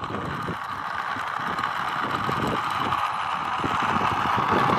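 Small wooden model car rolling over rough asphalt: a steady gritty rolling noise with irregular crackle from the wheels on the grit.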